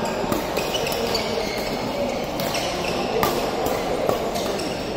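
Badminton rackets striking a shuttlecock during a rally: several sharp hits, coming closer together in the second half, in a large sports hall with voices from other courts behind them.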